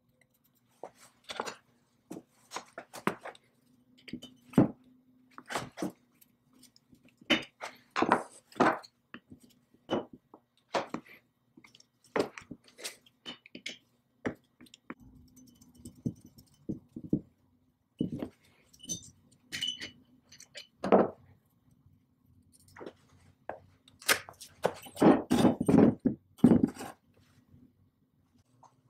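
Steel chisel and pick scraping and clicking on the cast-iron body of an antique belt lacer, in short irregular strokes with gaps between them. A denser, louder run of scraping comes near the end.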